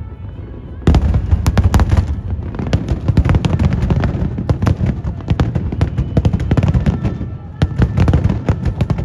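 Aerial fireworks display: a dense barrage of shell bursts and crackle, many bangs a second with deep rumbling booms, starting sharply about a second in.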